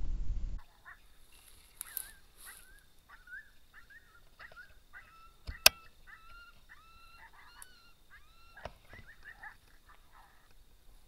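A chorus of short, pitched yelping calls from several animals, overlapping and bending up and down, several a second. A low rumble cuts off about half a second in, and one sharp click sounds a little past halfway.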